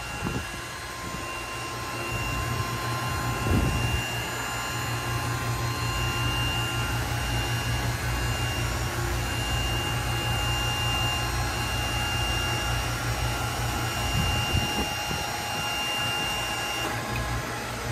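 Powered lift of a sport yacht's cockpit engine-room hatch running as the hatch rises: a steady low hum with a faint high whine that stops near the end, with a couple of dull knocks along the way.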